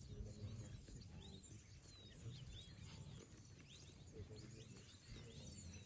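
Faint birdsong on open grassland: many short, quick chirping notes, with a low hum underneath.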